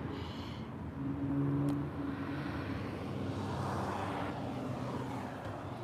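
Low, steady engine hum from distant traffic, swelling briefly a second or two in.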